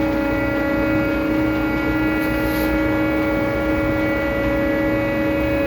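Port cargo-handling machinery running during container loading from trailer to ship: a steady mechanical drone with a constant hum, and a short hiss about two seconds in.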